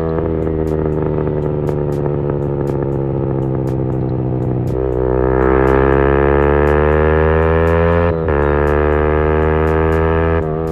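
Motorcycle engine pulling hard under acceleration, its pitch climbing steadily. It shifts up about halfway through and again after about eight seconds, the pitch dropping at each shift and then climbing again.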